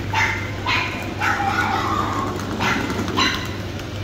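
A dog barking and yipping in short, pitched calls, about seven in four seconds, one of them drawn out.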